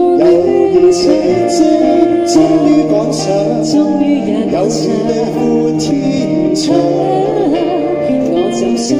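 A man and a woman singing a pop duet into microphones through a PA, accompanied by a small live band with guitar.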